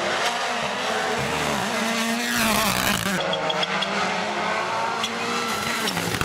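WRC Rally1 cars' turbocharged 1.6-litre four-cylinder engines revving hard and shifting, pitch rising and falling as the cars pass one after another, with a burst of loud hiss about two and a half seconds in.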